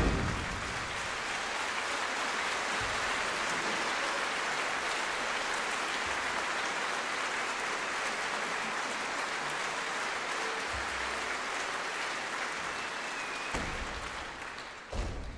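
A large audience applauding steadily, then dying away near the end.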